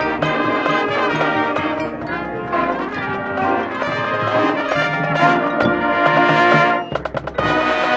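A high school marching band's brass and percussion playing a loud, full passage of a field show. About seven seconds in, the sound thins briefly to a few sharp hits, then the full band comes back in.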